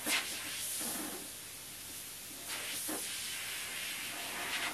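Airbrush hissing as compressed air sprays paint, swelling a few times in short passes.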